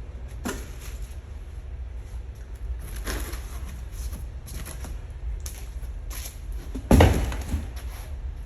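A few knocks and bumps, four in all, the loudest about seven seconds in, over a low steady rumble.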